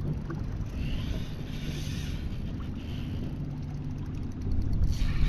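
Spinning reel being cranked to bring in a hooked bonefish on light tackle, its gears whirring, over a steady low rumble. The rumble gets louder near the end.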